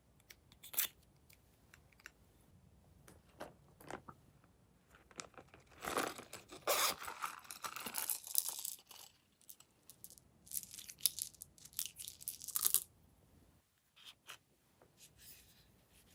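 Packaging being torn and crinkled, in two stretches of a few seconds each, with scattered light clicks and taps around them.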